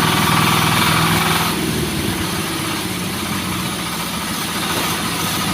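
Engine of a horizontal band sawmill running steadily. A brighter, higher sound over it stops about a second and a half in.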